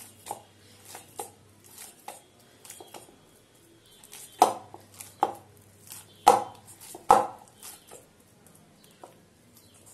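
Hands kneading and pressing a ball of wheat-flour dough in a stainless steel bowl: irregular soft knocks and thuds of dough and bowl, with a few louder knocks past the middle.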